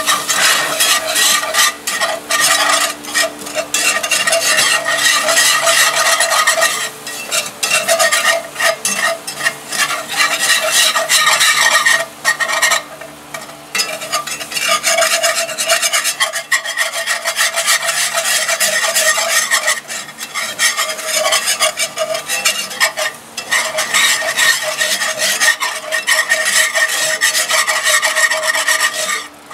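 Wire whisk scraping rapidly and loudly round the bottom of a cast-iron skillet, beating flour into beef drippings for a roux, with a short pause about halfway through.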